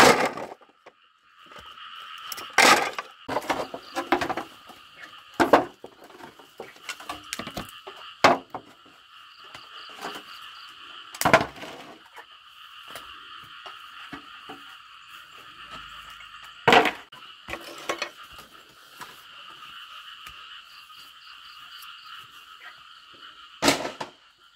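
Broken corrugated fibre-cement roof sheets clattering and crashing as they are thrown down and stacked, with about half a dozen loud crashes and smaller knocks between them. Under it, a steady high chorus of calling creatures.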